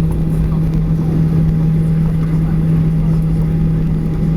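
Airliner cabin noise while taxiing: the engines give a steady, unchanging hum over a constant low rumble.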